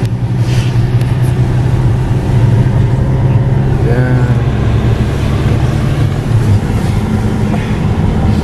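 Steady engine and road noise inside a Hyundai Sonata's cabin while driving on a wet mountain road, a constant low drone with tyre hiss above it.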